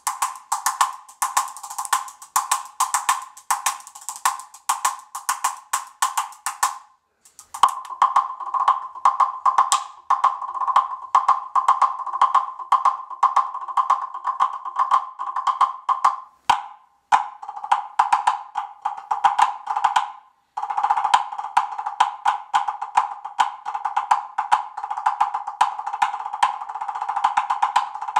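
Timbre Jam wooden box drum played with sticks in fast rhythmic patterns, each stroke a woody knock that rings briefly at one clear pitch, like a wood block. The playing stops briefly about 7 seconds in and twice more in the middle. In the last part the strokes come denser, with a brighter hiss over them.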